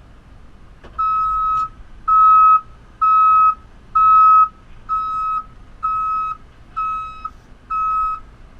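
Reversing alarm of a JCB 3CX backhoe loader: a loud, high electronic beep repeated eight times, about once a second, each beep lasting just over half a second, over a faint low engine rumble.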